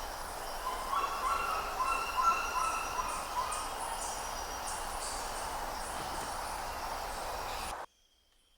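Birds chirping and calling over a steady background hiss, with a run of short repeated chirps in the first few seconds. The sound cuts off abruptly near the end.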